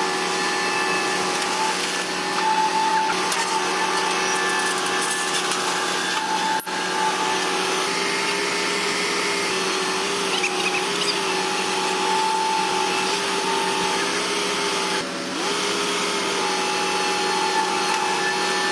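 Bulldozer engine running hard and steadily with a high whine over a rushing noise, its pitch sagging briefly about fifteen seconds in, as if under load.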